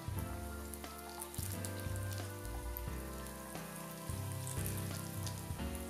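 Breaded croquettes deep-frying in hot oil, a steady crackle and fizz of bubbling oil, under background music with a moving bass line.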